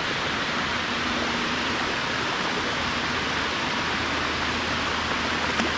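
Steady rush of water pouring down the face of a dam spillway.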